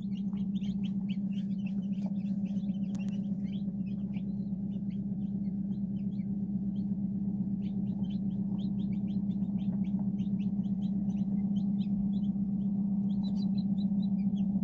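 Newly hatched chicken chicks peeping in an incubator: many short, high peeps in quick succession, growing busier in the second half, over a steady low hum.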